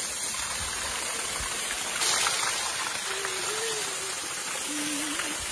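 A small mountain-spring waterfall pouring steadily off a rock and splashing, with a steady hiss that steps up a little about two seconds in.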